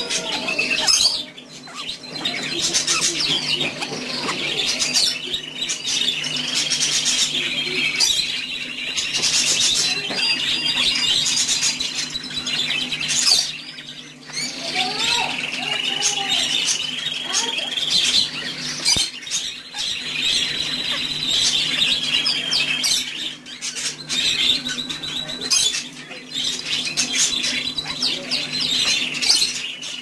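Budgerigars squawking and chattering almost without pause, harsh raspy calls broken by a few short gaps.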